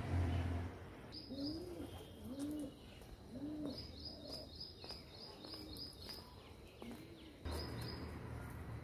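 Garden birds calling: one repeats a low note that rises and falls, about once a second, while another gives quick runs of high chirps. A low rumble comes in near the end.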